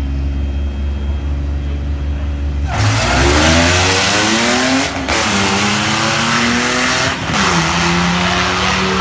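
Drag-racing cars idling at the start line, then launching about three seconds in: the engines rev up hard and accelerate away. There are two brief drops in the sound, about two seconds apart, as gears are shifted, each followed by a fresh rise in pitch.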